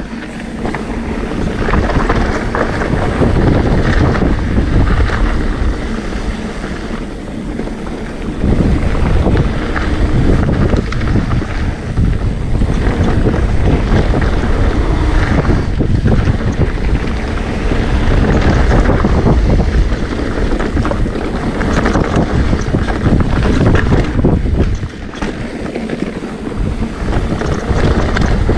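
Wind rushing over the microphone of a handlebar-mounted camera, mixed with tyres rolling over loose gravel and dirt on a mountain bike descending a trail. The rush rises and falls with the ride.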